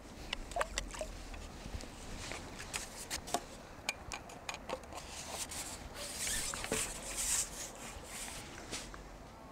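Scattered small clicks and taps of fishing tackle and pole sections being handled, with a brief rustle about six to seven seconds in.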